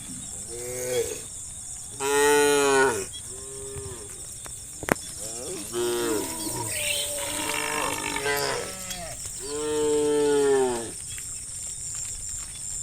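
Cows mooing one after another, about six calls, the loudest about two seconds in and near ten seconds in. A steady high hiss runs underneath, with a single sharp click near the middle.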